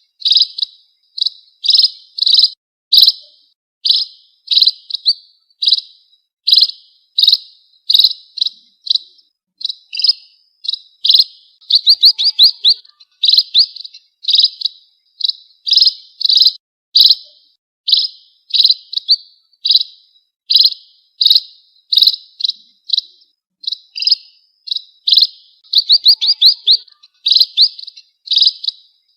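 Munia (emprit) calls from a bird-trapping lure recording: short high chirps, each a quick cluster of notes, repeated about twice a second without pause.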